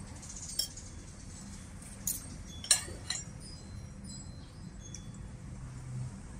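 Metal spoon clinking and scraping against a ceramic plate while scooping food, a few sharp clinks with the loudest about two and a half seconds in.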